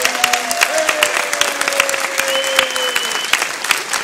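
Audience applauding, many hands clapping densely, with a couple of long held calls rising over the clapping.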